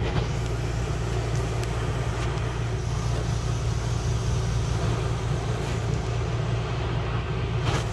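A steady low motor hum with a few faint clicks.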